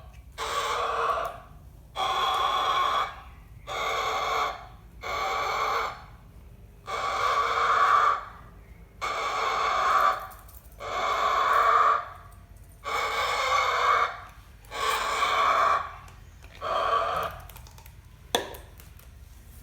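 A cockatoo calling over and over: about eleven calls of around a second each, spaced roughly one and a half to two seconds apart, stopping about two seconds before the end. A single sharp click follows near the end.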